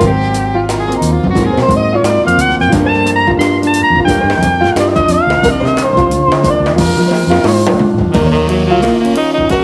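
Jazz music: horns playing a moving melody over a bass line and a drum kit keeping time.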